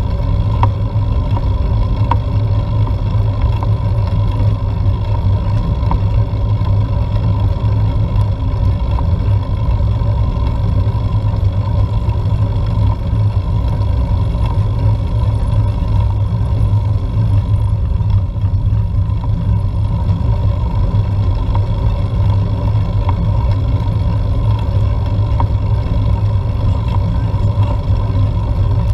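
Steady low rumble of wind and road noise on a bike-mounted GoPro action camera's microphone while riding, with a faint steady hum over it.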